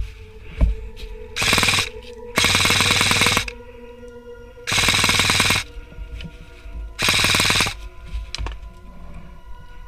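Krytac Kriss Vector airsoft electric gun (AEG) firing four full-auto bursts, each under a second to about a second long, with background music underneath.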